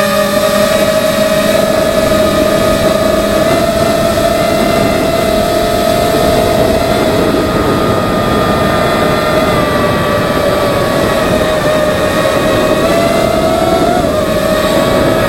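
FPV racing quadcopter's motors and propellers whining at a fairly steady pitch, with rushing air noise on the onboard camera's microphone; the pitch wavers briefly near the end.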